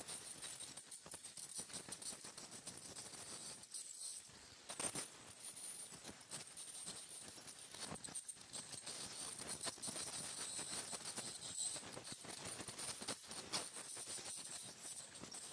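Ultrasonic dental scaler working along a dog's tartar-covered teeth. A steady high hiss runs under a rapid, irregular crackle of clicks as the tip chips tartar off.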